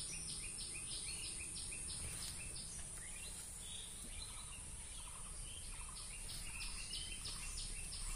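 Outdoor wildlife ambience: a rapid series of short high calls, about four or five a second, in two runs with a pause between, over a steady high insect-like drone and a low rumble.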